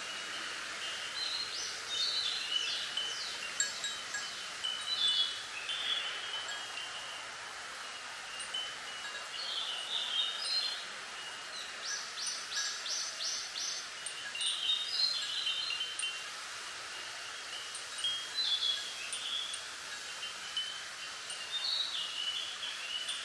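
Chimes ringing in light, irregular clusters of high tinkling notes every second or few, including one quick run of about six strikes midway. Underneath is a steady hiss of wind through bamboo leaves.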